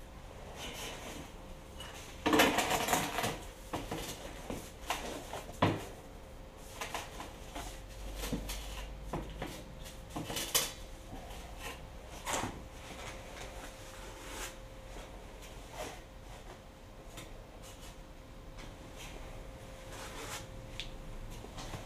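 Firebricks being handled and set in place inside a steel oil drum: irregular knocks, scrapes and clinks of brick against brick and against the drum, with a louder stretch of scraping about two seconds in and a few sharp knocks after it. A faint steady hum runs underneath.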